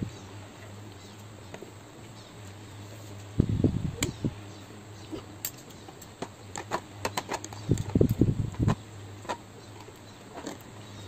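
Close-up eating sounds: two spells of chewing and slurping of instant noodles, with the metal fork and spoon clicking against the tray. A steady low hum runs underneath.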